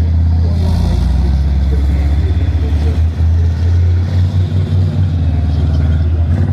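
Cheetah PRTL, the Dutch Gepard-type tracked anti-aircraft tank, driving past close by, its diesel engine running with a deep, steady note.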